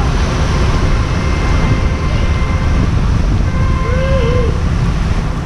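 Wind rush buffeting the microphone of a moving bicycle's camera, over the steady hiss of bicycle tyres spraying through water on a rain-soaked road.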